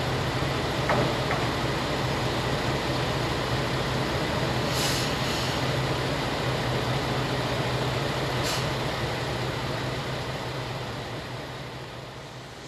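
Diesel railcar engines idling with a steady low hum while a second diesel railcar creeps in, with two short hisses of air, about five and eight and a half seconds in. The sound grows quieter near the end.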